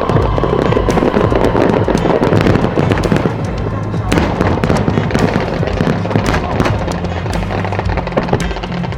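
Fireworks bursting and crackling in rapid succession, many sharp cracks and bangs throughout, over music with a stepping bass line.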